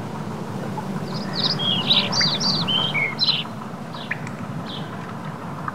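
Small birds chirping: a quick run of short, falling notes about a second in, then a few scattered calls, over a steady low background noise.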